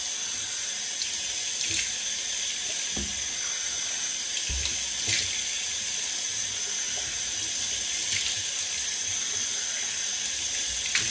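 Bathroom sink tap running steadily, with a few faint splashes of rinsing.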